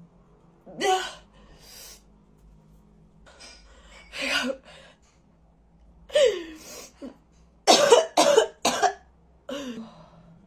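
A person coughing in a series of short fits, three in quick succession near the end, as a reaction to a nasal swab for a COVID test.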